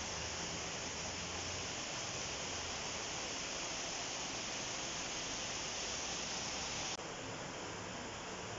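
Steady, even hiss with no clear strikes or tones. It steps slightly quieter and changes colour at a cut about seven seconds in.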